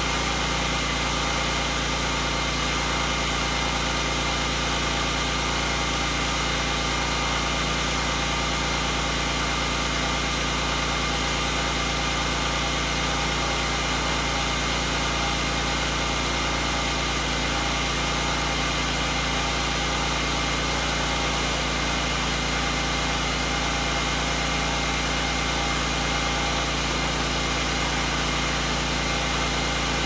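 Engine-driven pressure washer running steadily: a constant engine drone with the hiss of the spray over it.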